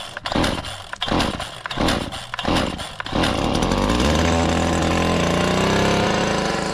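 Stihl FS 56 RC two-stroke string trimmer being pull-started: several quick pulls on the recoil starter cord, then about three seconds in the engine catches and runs fast and steady, its pitch rising briefly and then easing back. A cold start on choke, primed, after sitting since the last mowing season.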